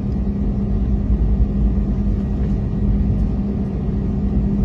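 Airbus A321neo's jet engines and airframe heard from inside the passenger cabin as a loud, steady rumble with a steady low hum, the aircraft at takeoff. The sound grows a little louder in the first second or so.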